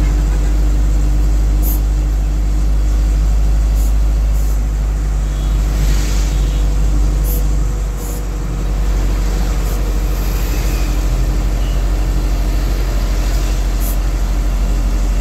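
Diesel engine of a heavy vehicle running steadily while driving on the highway, a loud low drone heard on board, with the sound of the road and passing traffic. The level dips briefly about halfway through.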